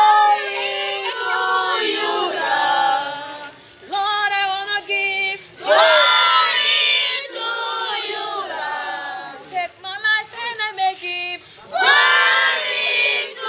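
A group of children and young women singing together in chorus, with no instruments, in loud phrases with short breaks between them; a fresh phrase starts about six seconds in and again about twelve seconds in.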